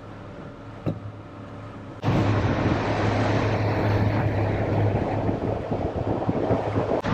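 Boat motor running steadily while trolling: a low hum that is faint at first, then much louder about two seconds in, with a rush of wind and water over it. There is a single click about a second in.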